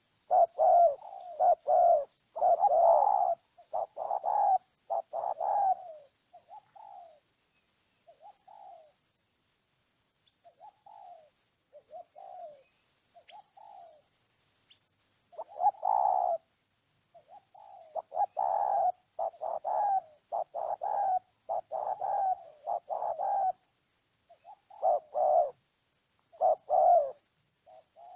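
Spotted dove cooing: runs of short, repeated coo notes, dense and loud at first, sparse and softer for several seconds in the middle, then dense again about halfway through. Faint high chirps sound in the background.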